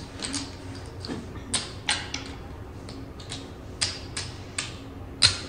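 Casino chips clacking as they are stacked and set down as bets on a blackjack table: irregular sharp clicks, the loudest one near the end.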